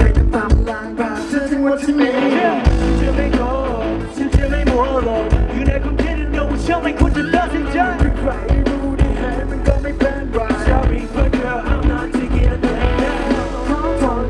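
Loud live pop-rock music from a band with drums and bass, with a male voice singing over it through the concert PA. The heavy bass comes in about two and a half seconds in.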